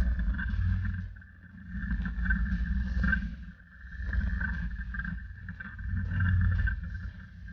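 Polaris RZR 900 XP side-by-side's twin-cylinder engine running at crawling pace. It swells and eases every second or two as the throttle is worked on rough ground, over a steady high whine.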